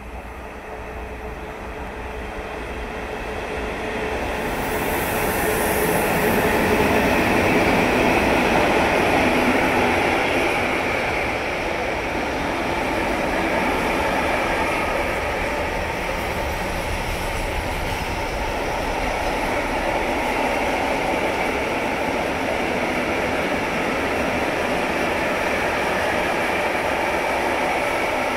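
Freight train hauled by a Bombardier Traxx class 185 electric locomotive passing close by. The sound grows over the first several seconds as the train comes alongside, with a brief high hiss about five seconds in. It then settles into the steady rolling of container and tank wagons on the rails.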